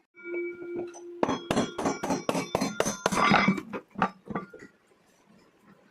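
Metal clanging from the washing machine's drum and parts being handled: one ringing metallic strike, then a quick run of about three knocks a second, each with a metallic ring, dying away near the end.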